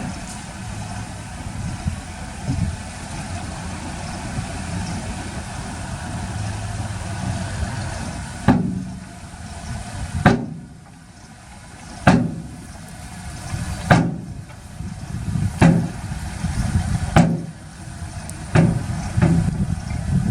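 Heavy diesel earthmoving machinery running steadily. About eight seconds in, a series of sharp knocks begins and repeats roughly every one and a half to two seconds.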